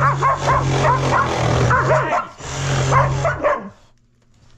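A power saw running in two stretches, cutting out a wooden wall footer, with a short break a little after two seconds in; a dog makes short, high, repeated calls, several a second, over the saw. Both stop about three and a half seconds in.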